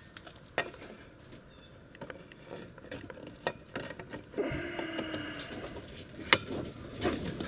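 Scattered clicks and clinks of metal clutch parts being handled, with one sharper knock near the end and a brief squeak-like tone lasting about a second halfway through.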